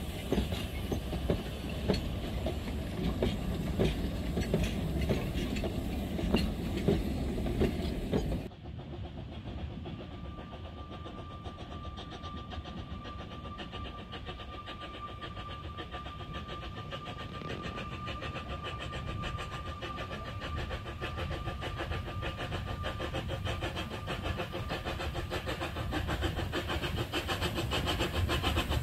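Narrow-gauge railway carriages rolling past, their wheels clicking over the rail joints. After a cut, a small narrow-gauge steam locomotive approaches hauling carriages, its fast, even exhaust beats growing steadily louder. A faint steady high tone holds for several seconds in the middle.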